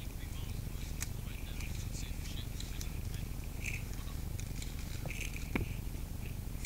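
Rustling of dry leaf litter and gear as a player moves and crouches behind a log barricade, with scattered sharp clicks, the loudest about five and a half seconds in.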